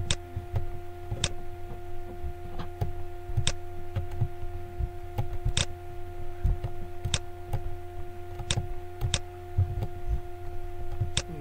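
Computer mouse clicking about eight times, irregularly a second or two apart, as the background eraser tool is applied spot by spot. A steady electrical hum runs underneath.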